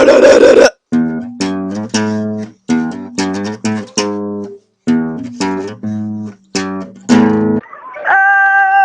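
Acoustic guitar playing a short passage of single plucked notes and chords, each ringing and dying away. It opens with a brief loud noisy burst, and a held sung note comes in near the end.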